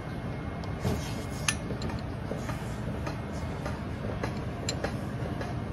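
Ceramic spoon clinking lightly against a porcelain bowl a handful of times, over a steady background noise.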